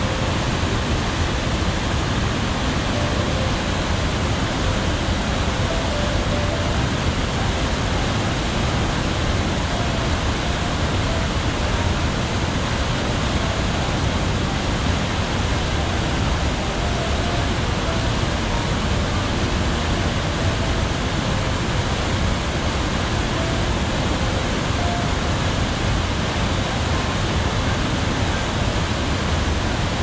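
Wide waterfall rapids: white water rushing over and between rocks, a steady, deep rushing noise that does not let up.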